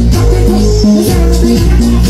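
Loud live dancehall music over a concert sound system, with a heavy bass line and a steady beat.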